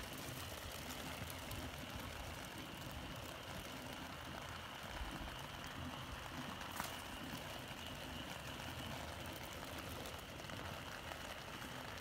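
Faint, steady outdoor night ambience: a low rumble with a thin, steady high-pitched hum over it, and a single faint click about seven seconds in.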